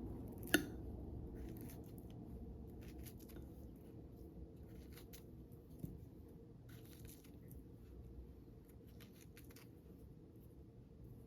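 A sharp click about half a second in, then faint, scattered rustles and light scrapes of household things being handled.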